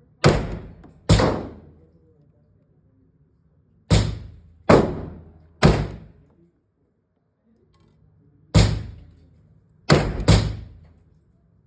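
Eight single gunshots from a CZ Scorpion fired at an uneven pace in small groups of one to three. Each is a sharp crack that dies away over about half a second.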